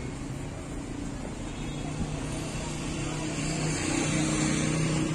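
Street traffic: a motor vehicle's engine hum that grows louder toward the end as it passes close by, over steady street noise.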